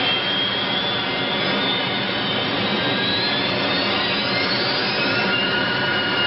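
Passenger jet's engines running at high power with a steady noise and a high whine that rises in pitch a few seconds in. The engines are being gunned to hold the nose off the runway on a landing with the nose gear up.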